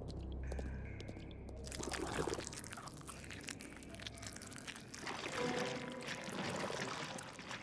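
Cartoon slime sound effects: wet pouring, dripping and oozing with many small splats, beginning about a second and a half in after a low drone. A few held music notes come in over it near the end.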